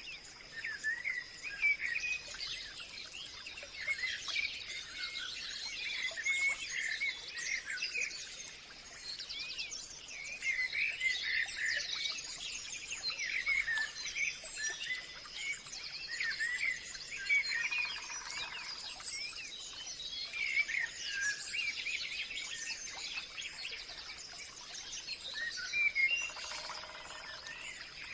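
Many birds chirping and singing at once in a dense, continuous chorus of short, quick calls, over a steady high-pitched tone, with a lower call twice, once in the middle and once near the end.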